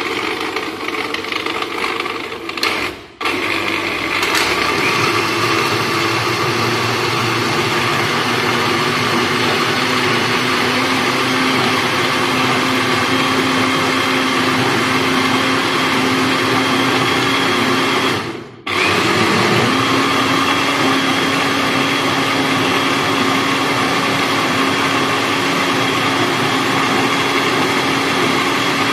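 Countertop electric blender running, blending a mango milkshake: a loud, steady motor whine that cuts out briefly about three seconds in and again around eighteen seconds, starting up again each time.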